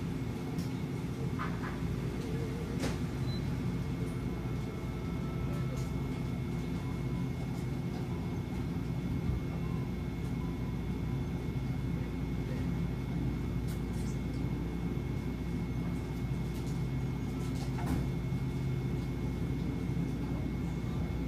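Convenience store room tone: a steady low hum of refrigerated drink coolers and ventilation, with a faint steady high tone and a few small clicks and taps.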